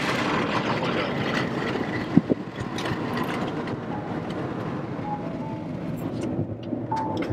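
Steady road noise inside a car moving on a highway: tyre and engine rumble, with one sharp knock about two seconds in.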